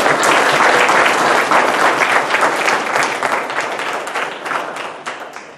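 Audience applauding, many hands clapping, loudest in the first few seconds and fading away near the end.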